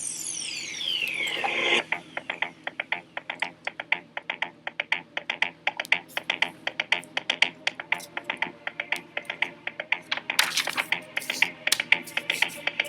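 A falling whistle-like sweep for the first two seconds, then rapid, irregular sharp clicking and tapping, several clicks a second, growing denser near the end.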